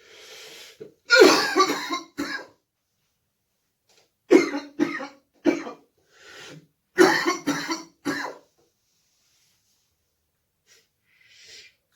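A man sick with COVID-19 coughing in three fits of rapid coughs, each a string of several hard coughs, which he likens to a machine gun. He takes a breath before the first fit and between the others.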